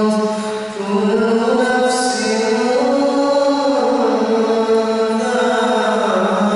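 A man recites the Quran aloud in a melodic chanted style while leading prayer, his voice carried through a microphone. He holds long notes that rise and fall in pitch, with a brief pause to breathe just under a second in.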